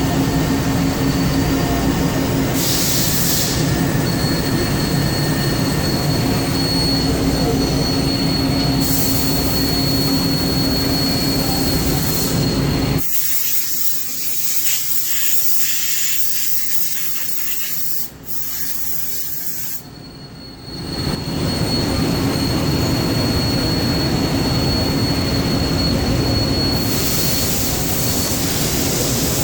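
1988 Mori Seiki SL4 two-axis CNC lathe running and cutting parts: steady machine noise with a constant high whine and a low hum, with a few bursts of hiss. Partway through, the running noise drops much quieter for several seconds, then comes back at full level.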